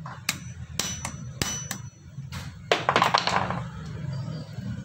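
Sharp metal clinks, four in the first two seconds, some with a brief high ring, as a screwdriver works at a car AC compressor's clutch pulley. A short scraping rasp follows about three seconds in.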